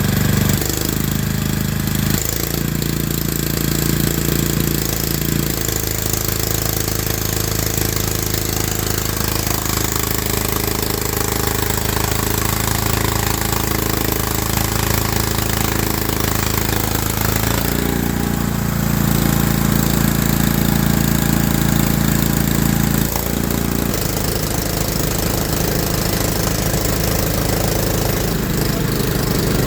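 An engine running steadily, its low note shifting a few times: near the start, about two-thirds of the way through and again shortly after.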